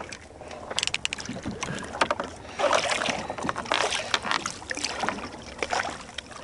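Water splashing and slapping at the side of a small fishing boat as a hooked red snapper is brought up to the hull and grabbed with plastic fish grips, with scattered small knocks and clicks of the gear against the boat.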